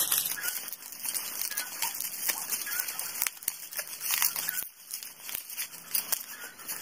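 Plastic packaging crinkling and tearing in irregular, crackly bursts as a small ceramic ornament is unwrapped by hand.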